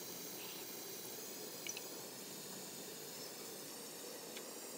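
Hands coating chicken pieces in wet batter and flour: a few soft squishes and faint clicks over a steady hiss.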